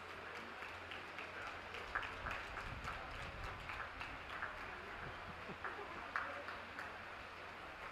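Scattered applause from a ringside crowd: irregular handclaps, loosest in the first half, over a low steady rumble.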